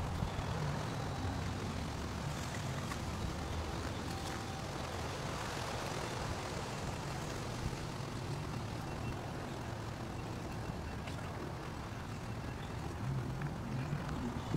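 Steady low rumble of road traffic passing, swelling slightly now and then.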